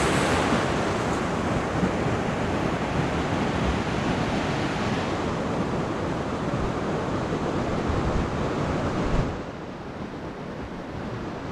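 Ocean surf breaking and washing up the beach, a steady rushing wash that falls away about nine seconds in.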